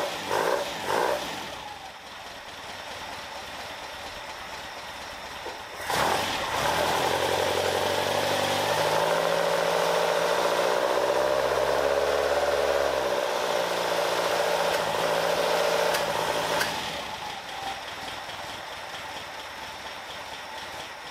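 Caterham Super Seven engine running on freshly re-jetted carburettors, idle jets back to the stock size 45. About six seconds in it comes in sharply louder, rises in pitch and eases back down, then cuts off abruptly about seventeen seconds in. A quieter steady sound fills the rest.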